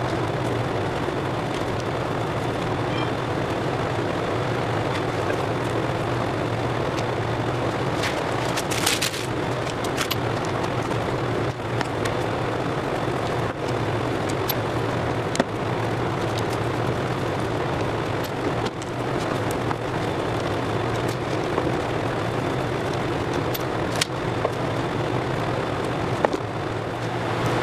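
Steady running noise of a waste-oil burner heater with a low hum, broken a handful of times by short metal clinks of a wrench on the Peerless 700 transaxle's case as its bolts are undone.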